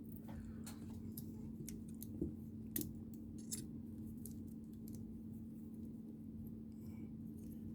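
Small plastic building-toy pieces clicking and snapping as they are handled and pressed together, in a scatter of short, sharp clicks. A steady low hum runs underneath.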